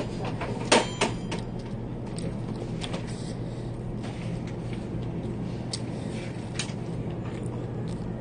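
A steady low hum of background noise with a few short, light clicks and taps of wooden chopsticks against a food container during eating.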